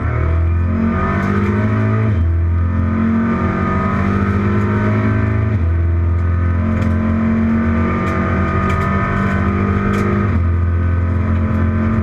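Race car engine heard from inside the cockpit, accelerating hard: the revs climb, then drop sharply at three upshifts, about two, five and a half and ten seconds in.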